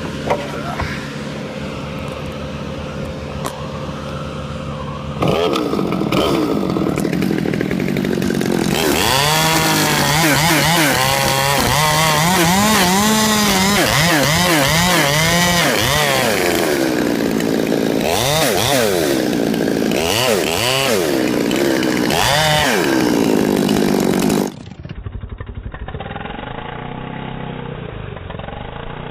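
Gasoline chainsaw running steadily, then revved hard about five seconds in and cutting through a Douglas fir top, its engine pitch rising and falling as it bogs in the cut and picks up again. Near the end the sound drops suddenly to a quieter, duller engine sound.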